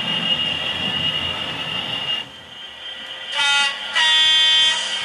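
Sound decoder of a model GBRf Class 66 diesel locomotive playing through its small loudspeaker: a steady diesel engine whine that drops away about two seconds in, then two horn blasts, a short one followed by a longer one at a higher pitch.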